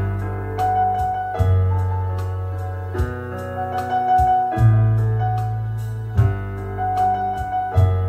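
Piano accompaniment to a Mandarin pop ballad, played on a Roland digital piano and Yamaha electronic keyboard. Held chords over deep bass notes change about every one and a half seconds, with a slow melody line on top.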